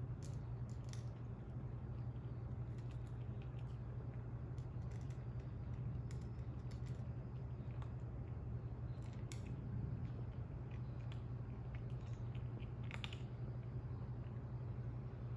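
Calico kitten chewing dry cat food from a metal dish, making small irregular crunching clicks, over a steady low hum.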